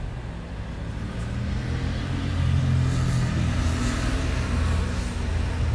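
Low engine and road rumble inside a passenger van's cabin as it drives, growing a little louder about two seconds in.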